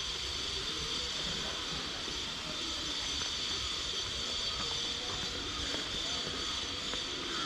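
Steady outdoor background hiss with a constant high-pitched ringing band over it, unchanging throughout, with a few faint ticks.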